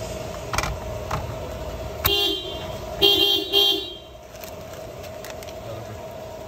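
Car horn giving three short toots: one about two seconds in, then two close together a second later. A couple of faint clicks come before them.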